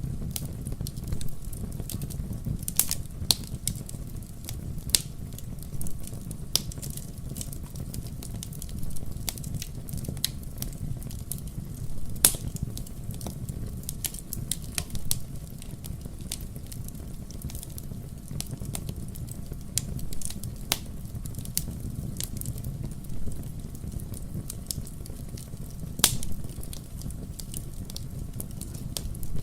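Wood fire burning in a fireplace: a steady low rumble of flames with irregular sharp crackles and pops, a few louder snaps standing out.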